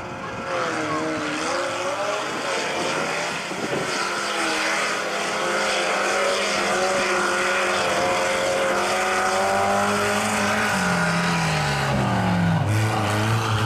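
Mud drag racer's engine running hard under full throttle, its pitch wavering up and down, then falling away in a long slide near the end.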